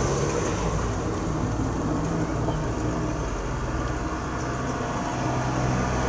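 Toshiba RT-5160S boombox playing a cassette but giving out no music, only a steady rumbling noise and a low hum that cuts in and out as the volume knob is turned. This points to dirty switches.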